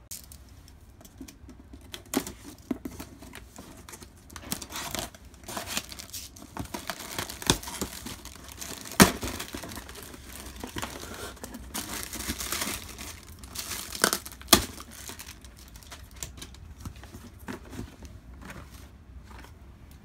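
Cardboard shipping box being torn open and unpacked by hand: tearing, cardboard flaps rubbing and clear plastic packing crinkling, with a few sharp snaps, the loudest about nine seconds in.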